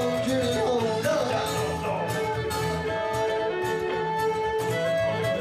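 Live fiddle playing the melody over strummed acoustic guitar, an instrumental stretch of an old-time song.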